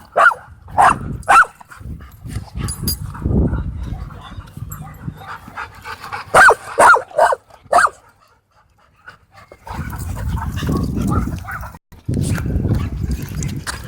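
Dogs growling in rough play, with sharp barks: a few in the first second and a half and four more in quick succession around the middle. After a short lull the low growling picks up again for the last few seconds.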